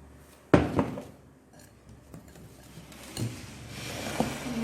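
A kitchen utensil strikes a mixing bowl sharply about half a second in, ringing briefly. Then come a couple of lighter knocks and a growing scraping hiss as the semolina batter is stirred.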